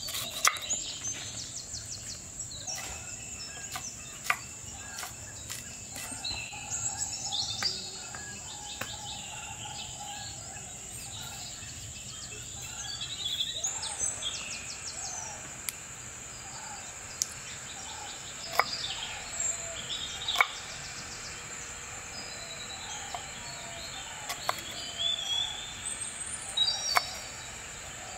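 Birds chirping over a steady high-pitched insect drone, with a few sharp knife chops on a wooden cutting board.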